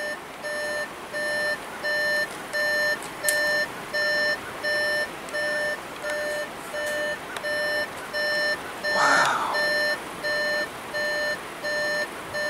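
A car's warning chime beeping steadily and evenly, about once every two-thirds of a second, with a short noise about nine seconds in.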